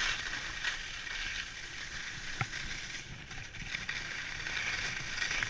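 Skis hissing and scraping over packed snow on a downhill run, with a low rumble of wind on the microphone.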